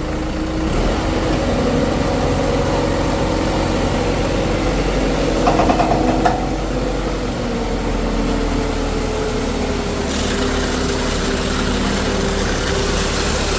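An engine idling steadily, with a brief rapid rattle about six seconds in.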